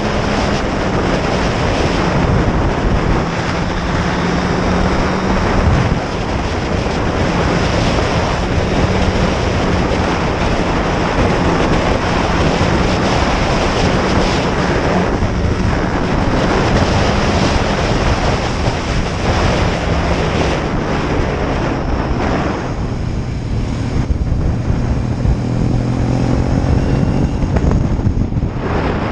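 Heavy wind noise buffeting the microphone while riding along a road, with a steady engine hum underneath. About three-quarters of the way through, the engine note drops lower and shifts.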